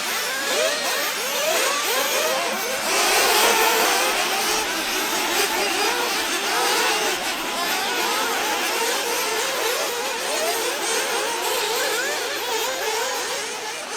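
Several 1/8-scale nitro RC buggies racing, their small two-stroke glow-fuel engines overlapping as each revs up and down in pitch while accelerating and braking around the track.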